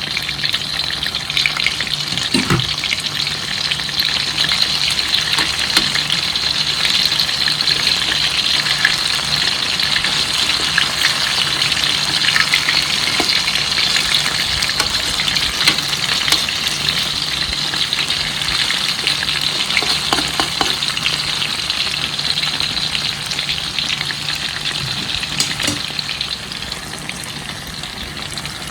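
Battered banana fritters sizzling and crackling steadily in hot oil, with a few faint knocks of a utensil.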